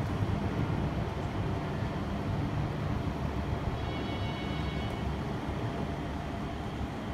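Induction sealing machine running with its cooling fans and conveyor going: a steady low whir, with a faint high whine coming in about four seconds in.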